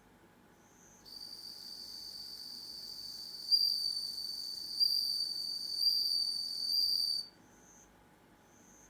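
Japanese bell cricket (suzumushi) singing: a high, steady ringing trill held for about six seconds, louder from midway with several swells, then stopping abruptly. Faint short chirps repeat about once a second before and after it.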